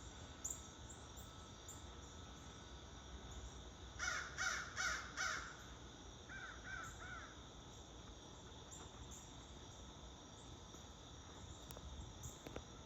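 Crows cawing: about four loud caws about four seconds in, then a fainter series of about four caws right after, like a second crow answering. Under them runs the steady hum of an air-conditioning unit.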